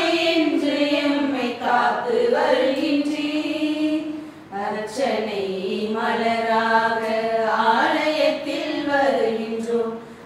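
Voices singing a hymn in slow phrases of long held notes, with brief breaks between phrases about two and four seconds in.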